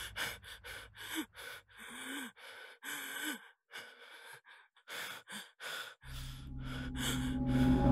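A person gasping and breathing in quick, ragged breaths. About six seconds in, a low drone swells in underneath.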